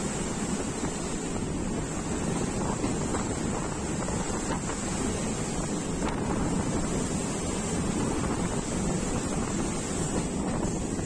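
Steady rushing noise of a passenger train running at speed, with wind buffeting the microphone.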